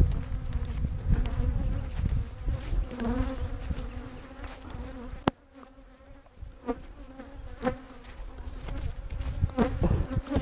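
Many bees buzzing in a steady hum, from a disturbed colony that is chasing and swarming the people around it, with single bees now and then zipping close past the microphone. Low wind and handling rumble fills the first half and drops away suddenly about five seconds in.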